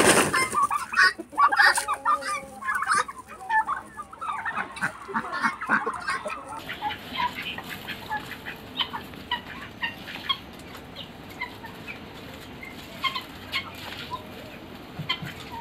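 Backyard poultry flock of helmeted guineafowl and turkeys calling and clucking, a dense overlapping chatter for the first six seconds or so. After that come scattered short clucks and chirps.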